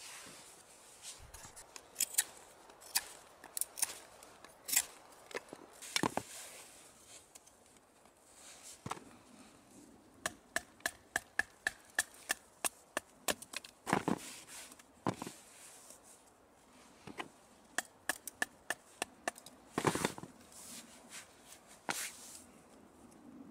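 A fixed-blade knife carving a wooden stick: sharp woody clicks and ticks, a quick run of about four a second in the middle, broken by several longer scraping strokes as shavings are cut off.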